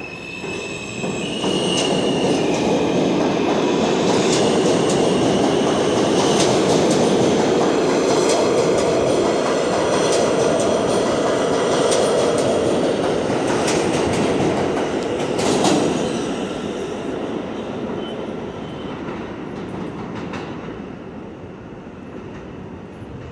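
New York City Subway F train of R160 cars pulling out of the station: a brief rising motor whine as it starts, then a loud, steady rumble of wheels on rail with repeated clacks over rail joints. The sound peaks about fifteen seconds in and fades as the last car leaves.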